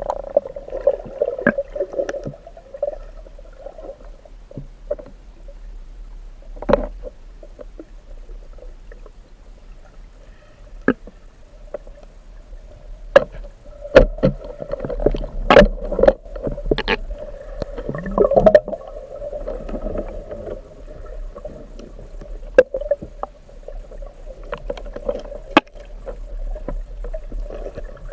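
Underwater river noise picked up through a camera's waterproof housing as a spearfisher swims upstream against the current: a steady low hum with irregular sharp knocks and clicks, most of them clustered around the middle.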